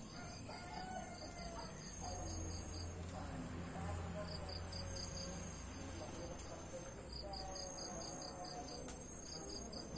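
Insects calling in garden vegetation: a steady high-pitched trill with a pulsing chirp at about five pulses a second that comes and goes in runs, over a low rumble.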